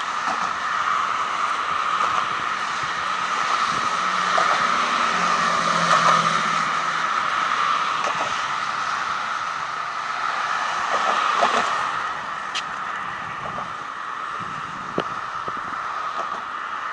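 Road traffic going by: a steady hiss of tyres on the road, growing louder as vehicles pass about four to six seconds in and again near twelve seconds.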